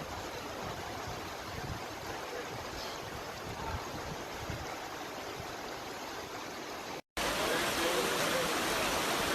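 Steady rushing of floodwater from a burst water main. It cuts out briefly about seven seconds in, then comes back slightly louder.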